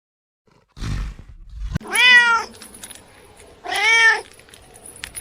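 Domestic cat meowing twice, each meow a clear pitched call about half a second long that rises and then falls in pitch.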